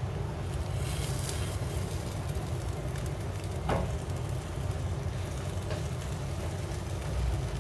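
Tortilla wraps heating in a non-stick frying pan on a gas stove: a steady low rumble under faint sizzling, with a brief scrape near the middle as the rolls are shifted in the pan.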